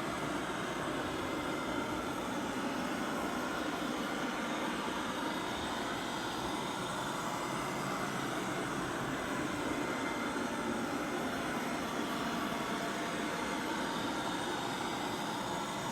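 Coredy R500+ robot vacuum cleaner running with a steady motor and fan noise.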